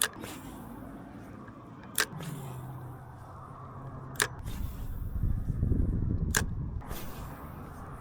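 Four sharp clicks about two seconds apart, with a low hum and a low rumble swelling and fading in the middle.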